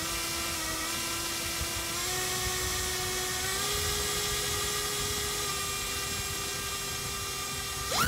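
iFlight XING X2207 2750KV brushless motor spinning a Gemfan 5043 propeller at low throttle on a thrust test stand: a steady electric whine that steps up in pitch twice. Right at the end the whine climbs sharply as the throttle is opened up.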